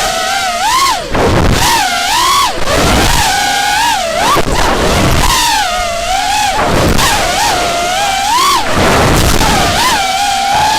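FPV quadcopter's 2300 kV brushless motors and three-blade 5-inch props whining, the pitch rising and falling continuously with the throttle in flight, over a low rumble of wind.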